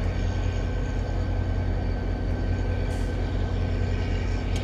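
Diesel locomotive of an NJ Transit commuter train running steadily: a deep, even throb pulsing about four to five times a second, with a thin steady whine above it.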